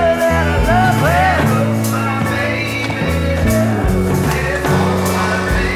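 Rock music with a bass line stepping between notes and a cymbal pulse.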